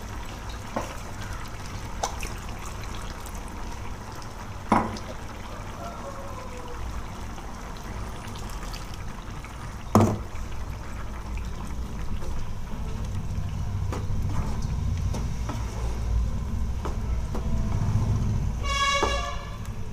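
Gravy simmering in a nonstick pan on a gas stove: a steady low bubbling with a few sharp clicks and knocks, the loudest about ten seconds in. From about twelve seconds on a wooden spatula stirs and scrapes through the thick gravy, and a brief horn-like toot sounds near the end.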